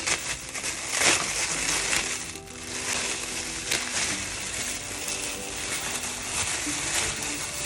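Packaging crinkling and rustling as it is handled and opened, loudest about a second in, over quiet background music.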